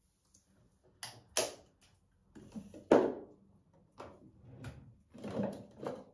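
Small knocks and clatters of toiletries and other items being handled and set down at a bathroom sink: a series of separate sharp taps about a second apart, the loudest about three seconds in.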